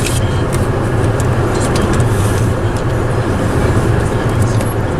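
Steady low rumble of a car's engine and running noise heard from inside the cabin.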